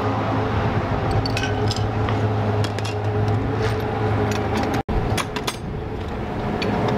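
A steady low mechanical hum with scattered light metallic clinks and ticks over it. The sound cuts out for an instant about five seconds in.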